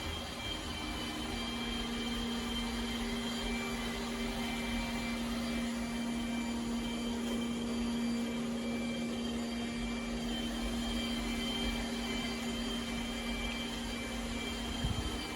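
iRobot Roomba Combo j7+ robot vacuum running: a steady motor whir with a low hum and a thin high whine over it, unbroken throughout.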